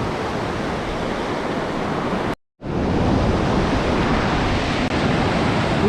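Steady beach surf with wind buffeting the microphone, cutting out completely for a split second about two and a half seconds in.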